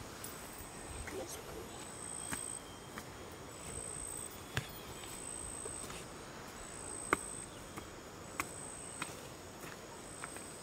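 An insect calls in repeated high-pitched pulses, each under a second long and coming about every second and a half, over a faint background. A few sharp clicks or knocks fall in between.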